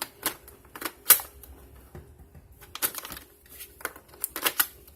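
Laptop battery being fitted back into the laptop: a string of sharp plastic clicks and knocks, the loudest about a second in and a quick cluster near the end.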